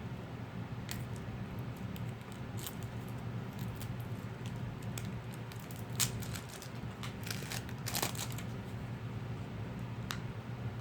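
Plastic packaging of a new deck of playing cards crinkling and tearing as it is opened, with scattered sharp clicks and crackles, busiest from about six to eight and a half seconds in, over a steady low hum.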